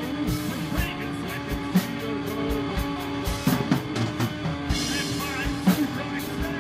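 Instrumental rock jam: a drum kit keeps a steady beat under a guitar playing bending, sliding notes.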